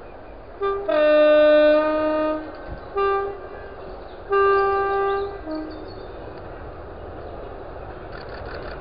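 Diesel locomotive's two-tone horn sounded five times: three short blasts and two long ones, switching between a higher and a lower note. After that comes the rising rumble of the approaching freight train.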